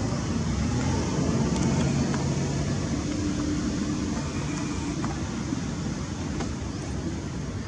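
A steady low mechanical drone, a few level low tones holding over a wash of background noise, slowly growing fainter.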